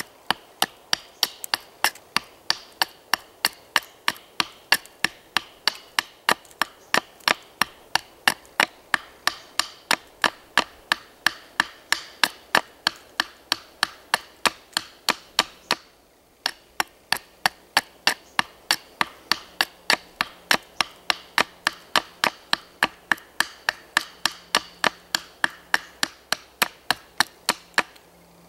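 A large knife chopping into a wooden plank, carving down the jaw of a pair of wooden pliers. Quick, sharp strokes come evenly at about three to four a second, with a short break about halfway through.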